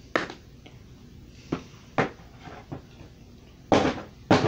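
A handful of short knocks and clicks, about six spread out, the two loudest near the end.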